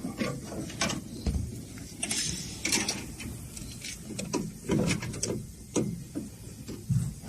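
Irregular mechanical clanks and knocks, a dozen or so spread unevenly, over a low steady rumble.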